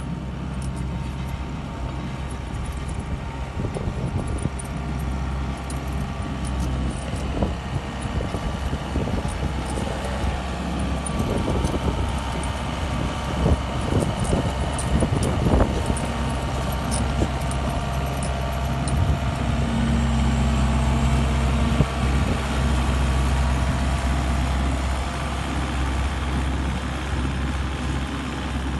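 Komatsu CK30 compact track loader's diesel engine running steadily under load as it pushes a leveling grader through loose soil, with scattered clanks and rattles in the middle. It grows louder in the second half as the machine comes closer.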